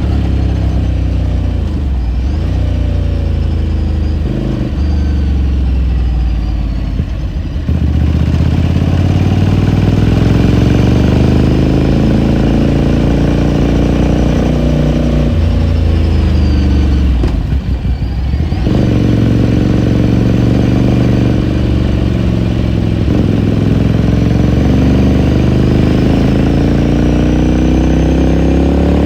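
2018 Ducati Scrambler Sixty2's 399 cc air-cooled L-twin engine running under way, its pitch rising and falling as the throttle is worked. Twice, about seven and a half and seventeen seconds in, the sound briefly drops off before the revs climb again.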